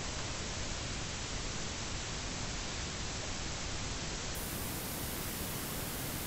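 Steady wind noise rushing over a chest-mounted action camera's microphone on a moving motorcycle, with no engine note standing out. It turns hissier about four seconds in.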